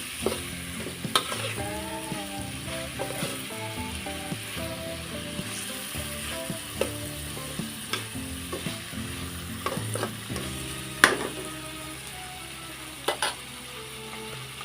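Food sizzling as it fries in a pan, with a utensil stirring and clinking against the pan now and then. A sharp clink about eleven seconds in is the loudest sound.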